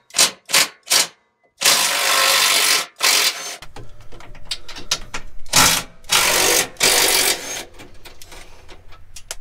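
Porter-Cable impact driver with a 15 mm socket on an extension, running in several short bursts, the longest a little after the start, as it undoes the bolts holding the factory bump stops.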